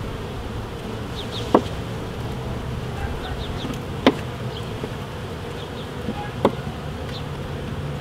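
Honeybees buzzing steadily around an open hive, with three sharp clicks a couple of seconds apart as a metal hive tool pries at the wooden frames of the honey super.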